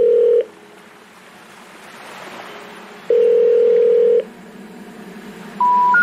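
Telephone ringback tone: a steady beep cut short at the start, then a second one-second beep about three seconds later, with faint hiss between. Near the end come three short tones stepping upward, the intercept signal that tells a caller the number cannot be reached.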